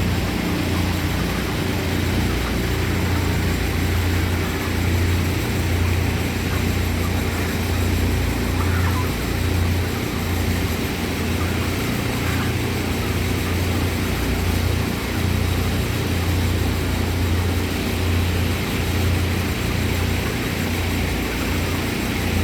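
Large ventilation fans of an environmentally controlled poultry shed running steadily, a constant low drone with no breaks.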